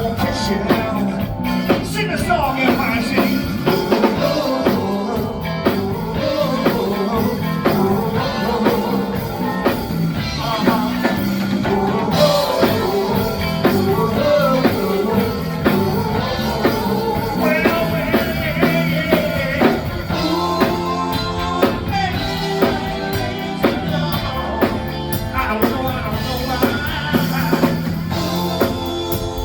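Live rock band playing: a drum kit keeping a steady beat under a singing voice and instruments.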